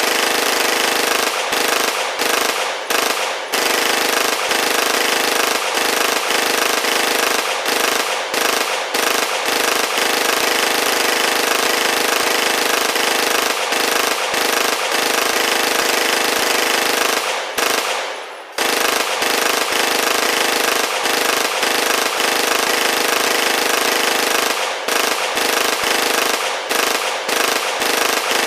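Rapid automatic gunfire, a continuous rattle of shots run together, broken by a few short pauses and one longer pause about two-thirds of the way through.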